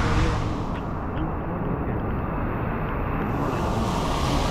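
Road traffic on a rain-soaked, flooded street: a steady low rumble, with the hiss of tyres through water coming back near the end as a pickup truck drives past.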